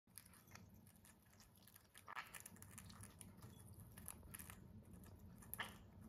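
Faint clicks and crunches of green-cheeked conures pecking and nibbling at food, with a louder crunch about two seconds in and another just before the end.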